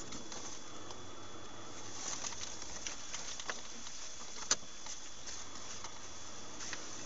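Vehicle cabin noise picked up by a dashcam microphone while driving: a steady hiss with scattered small ticks and rattles, and one sharper click about four and a half seconds in.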